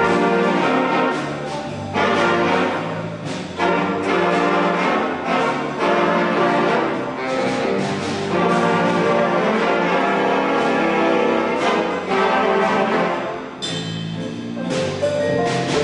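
Big band of saxophones, trombones and trumpets with piano playing a brass-heavy ensemble passage, with strong accented full-band attacks every couple of seconds. It eases off briefly near the end before the full band comes back in.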